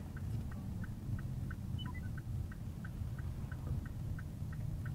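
A car's turn-signal indicator ticking evenly, about three clicks a second, over the steady rumble of the engine and tyres inside the cabin.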